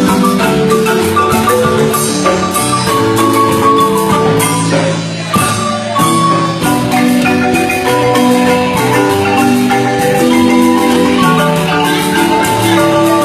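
Guatemalan marimba music: several pitched wooden bars sounding together in chords over a lower bass line, played continuously.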